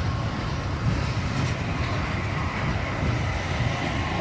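Speno RR32 M5 rail-grinding train running past, a steady low rumble with a faint steady whine over it.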